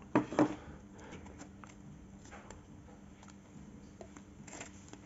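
Faint handling sounds of a GoPro Hero 10 being taken out of its packaging: two short louder sounds near the start, then scattered light clicks and rustles.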